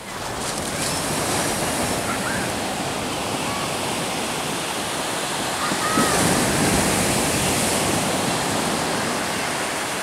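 Sea surf breaking and washing up a sandy beach: a steady rushing of waves and foam that comes up sharply at the start and is loudest about six seconds in, as a wave breaks close to shore.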